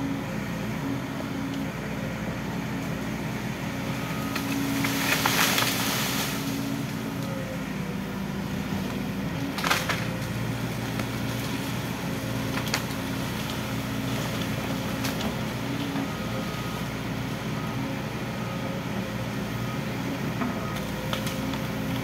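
Volvo EC210 excavator's diesel engine running steadily under load while its bucket digs roots and brush out of the slope. A brief rushing swell comes about five seconds in, and a sharp knock near the ten-second mark, with a few lighter clicks after.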